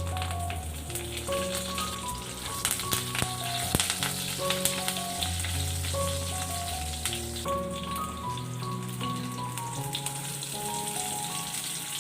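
Food frying in hot oil in a pan, a steady sizzle with crackles that come most densely a few seconds in, under a background music melody.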